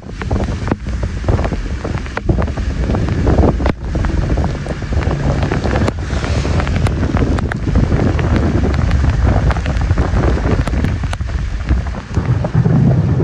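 Strong wind gusting across the microphone in a rainstorm, a rising and falling low rumble over a steady wash of rain.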